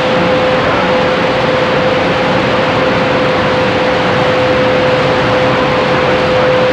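CB radio receiver on the 11-meter band giving out loud, steady static hiss with no station talking, and a single steady whistle tone held over it from an unmodulated carrier on the channel.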